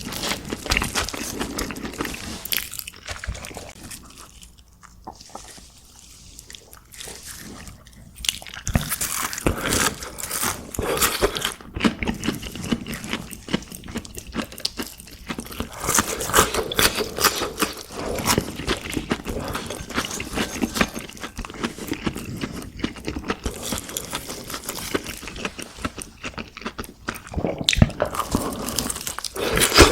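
Close-miked biting and chewing of crunchy fried food, a dense crackling crunch. It goes quieter for a few seconds early on, then the crunching picks up again.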